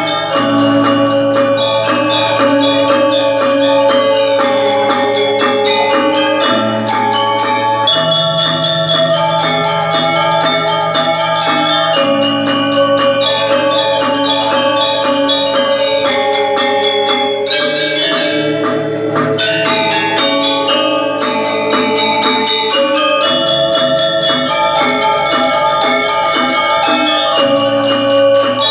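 Marching band playing: bright mallet bells ring out a melody over sustained low chords that change every few seconds, with steady percussion strokes underneath.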